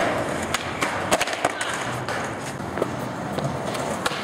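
Skateboard wheels rolling on concrete, with a few sharp clacks of the board.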